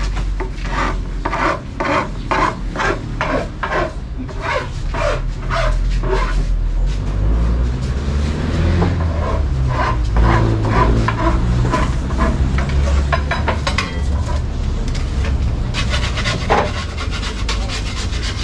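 Wood being abraded by hand in rapid back-and-forth strokes, about three a second, running together into denser scraping later on.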